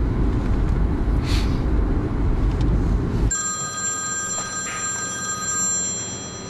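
Steady road rumble inside a moving car, then, about three seconds in, a mobile phone ringing: an electronic ringtone of several steady held tones that fades near the end.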